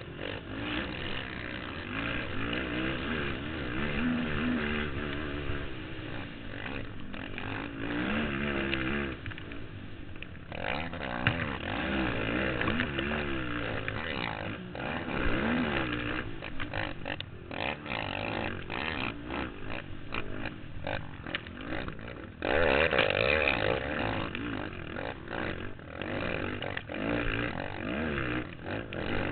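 Race quad's engine heard from on board, its pitch rising and falling as the rider works the throttle and gears around a dirt motocross track, with a louder surge about three-quarters of the way through.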